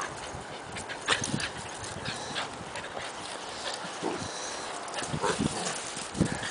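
Two Keeshond puppies play-fighting: short, scattered puppy noises mixed with scuffling and knocks.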